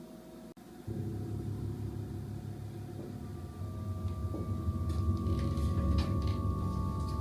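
Low rumbling drone that starts suddenly and slowly swells, with sustained high tones coming in about three and six seconds in, like a suspense film score.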